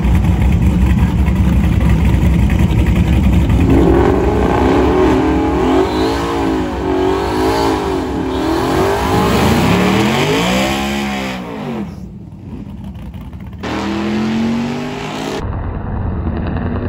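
Twin-turbocharged 2019 Ford Mustang GT's 5.0-litre V8 revving up and down several times while its rear tyres spin in a burnout. The sound cuts off abruptly twice near the end, with a short rising rev in between.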